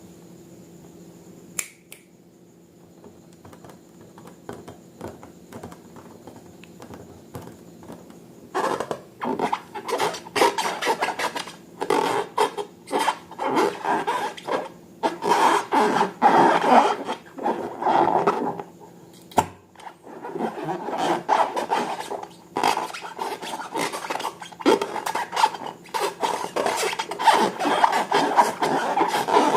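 Slime being worked by hand or mixed, giving rapid squishing, crackling and scraping strokes. These start about a third of the way in after a quiet stretch with a faint hum, and carry on with brief pauses.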